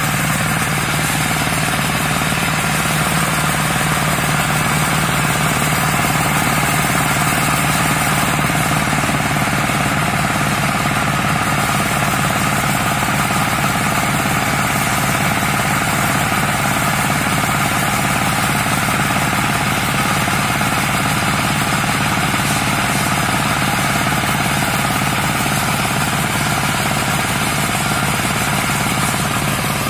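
Engine of a walk-behind paddy tractor converted into a brush-clearing mower, running steadily with a rapid, even pulsing beat while it slashes through undergrowth.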